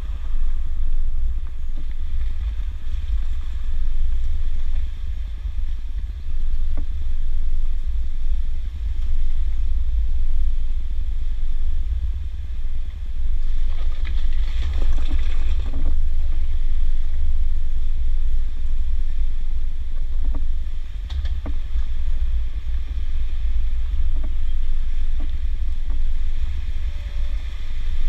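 Jeep driving slowly along a rough dirt trail, picked up by a microphone outside the body: a steady low rumble throughout. About halfway through there is a louder, noisier stretch as the tyres cross a patch of loose rocks.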